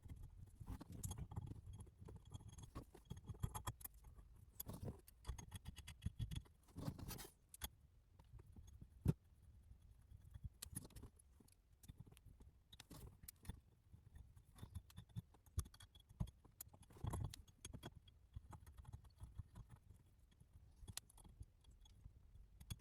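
Faint, irregular clicks, clinks and light knocks of hand tools and small metal parts being handled, with one sharper click about nine seconds in.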